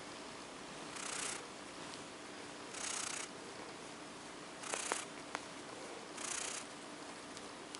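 Fingers scratching through a cat's fur right at the microphone, in four short hissing strokes about one and a half to two seconds apart, with a couple of small clicks about five seconds in.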